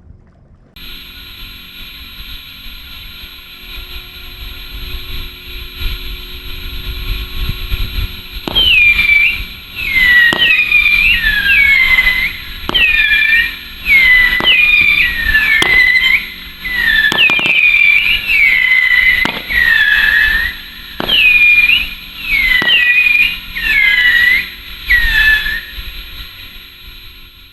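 A Fire Hawk Fox Howl 12-shot whistling cake firing. A hiss grows louder for several seconds. Then about a dozen shots go off, roughly one every second and a half. Each shot is a sharp launch followed by a triple whistle that falls in pitch.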